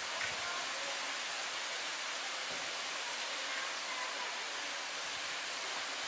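Small waterfalls pouring over rock into pools: a steady rushing hiss of falling, splashing water.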